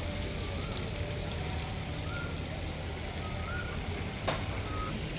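Short rising bird whistles repeating about every second and a half over a steady low hum and a background hiss, with one sharp click about four seconds in.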